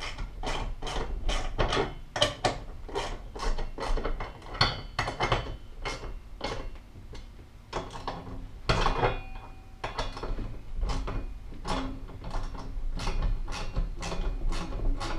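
Ratcheting hand tool tightening a mounting screw for a steel helmet holder bracket, a run of short clicking strokes about three a second with brief pauses.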